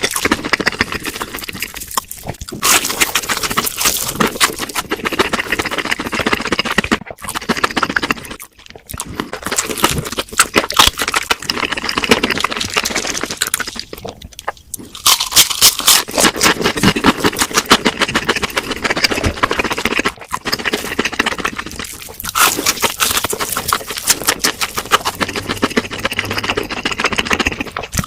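Close-miked crunching and chewing of crispy fried food: a dense crackle of bites with a few brief pauses between mouthfuls.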